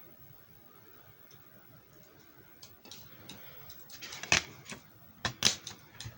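Keys tapped on an HP ProBook 640 G4 laptop keyboard: scattered clicks begin about two and a half seconds in, with a few louder taps in the second half, as a password is typed.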